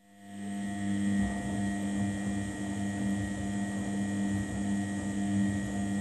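Front-loading washing machine running: a steady motor hum with several fixed tones over a fluctuating low rumble from the turning drum, rising in from quiet over the first second.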